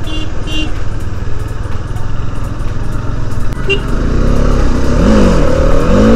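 Motorcycle engine running under way with wind rushing over the helmet microphone, and two short horn beeps right at the start. From about four seconds in the engine note rises and falls as the rider works the throttle.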